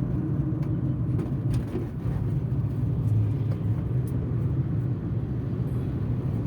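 Car driving along a road, heard from inside: a steady low engine and road rumble.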